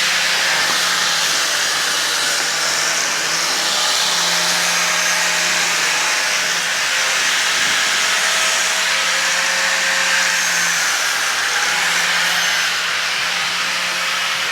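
Electric stone-working power tool running steadily on marble, a continuous grinding hiss over a low motor hum.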